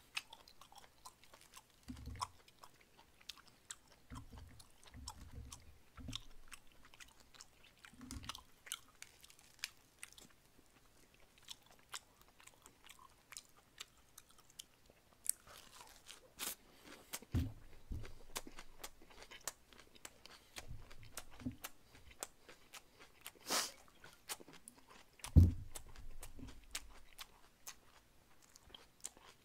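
Close-miked chewing of a lettuce wrap with spicy grilled pork intestines: crunching and many small wet mouth clicks. Occasional low thumps, the loudest about 25 seconds in.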